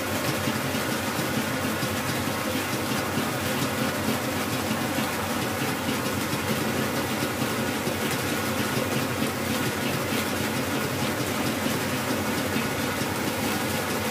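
Electric stand mixer running at a steady speed, its whisk beating chiffon-cake meringue in a stainless steel bowl: an even motor whir with the whisk churning, unchanging throughout.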